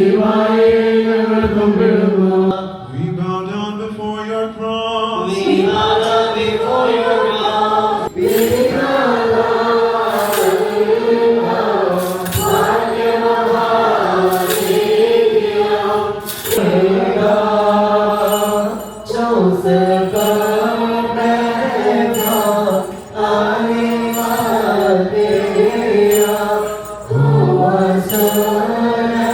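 Malankara Orthodox liturgical chant: voices singing a slow hymn melody in long phrases with short breaths between them.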